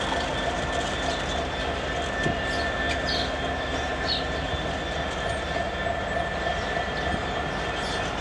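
Freight train of autorack cars rolling past at a steady pace: a continuous rumble of steel wheels on rail, with a thin high whine held throughout.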